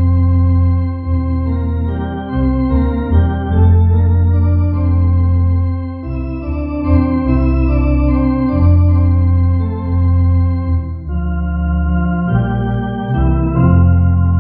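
Two-manual electronic organ playing a slow hymn in held chords over a deep, full bass, the chords changing every second or two.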